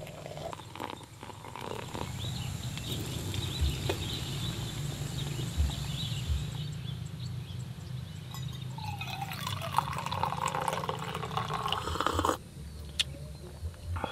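Hot water poured from a stainless steel kettle into a glass French press. From about halfway through, brewed coffee is poured from the French press into a metal mug, a fuller, lower pour that cuts off suddenly about two seconds before the end.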